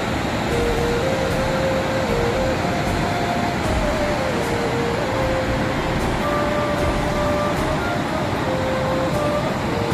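Waterfall on a rocky river giving a steady rushing roar, with a soft melody of held notes over it that steps up and down in pitch.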